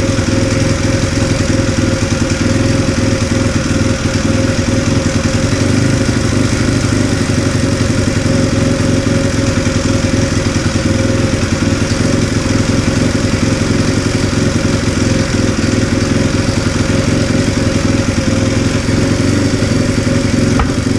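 Honda Jazz 50cc single-cylinder four-stroke motorcycle engine idling steadily, its tappets freshly readjusted to cure a suspected abnormal noise.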